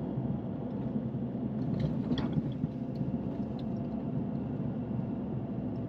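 Steady low rumble of a car cabin on the move, with a few faint light clicks about two seconds in.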